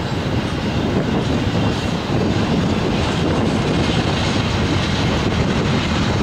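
Double-stack intermodal freight train's well cars rolling past: a steady, loud noise of steel wheels on rail.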